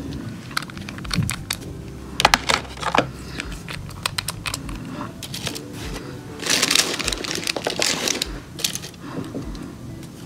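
Gel polish bottles and caps clicking and knocking as they are handled and set back in the kit's tray, with a sharp cluster of clicks about two seconds in and a stretch of rustling handling noise about six to eight seconds in, over quiet background music.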